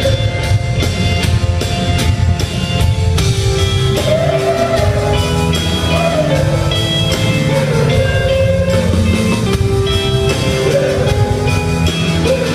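Rock band playing live on an arena stage: drum kit, electric guitars and bass together, heard from among the audience.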